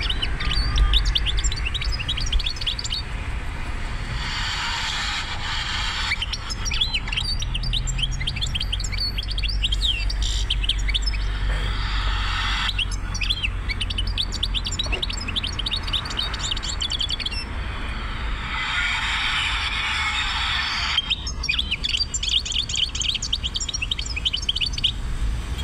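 European goldfinch singing: fast twittering phrases of high chirps and trills in several long bursts with short breaks between them, over the steady low rumble of a car on the road.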